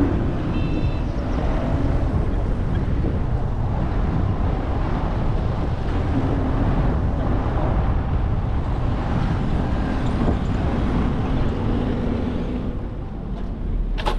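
Car driving, with a steady rumble of engine and road noise and heavy wind buffeting the microphone.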